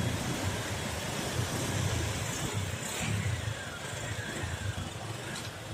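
Engines of vehicles driving through floodwater close by: a low, uneven rumble, with a faint falling whine about three seconds in.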